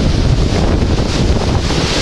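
Hurricane wind buffeting the microphone, over the steady hiss of rain.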